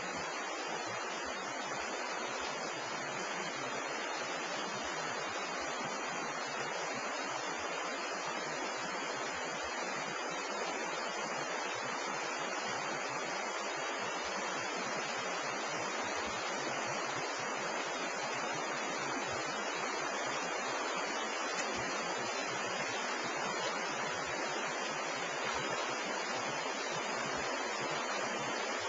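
Stream water rushing, a steady even hiss of flowing water.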